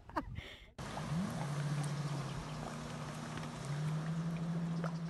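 Jet ski engine running at speed, a steady drone over a hiss of water, starting about a second in; its pitch rises as the throttle opens and climbs again a little past halfway.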